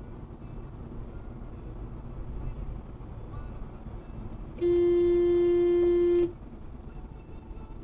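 A car horn sounds one steady honk, held for about a second and a half, loud over the low hum of road noise inside the car. It is a warning blast at a van cutting in from the right.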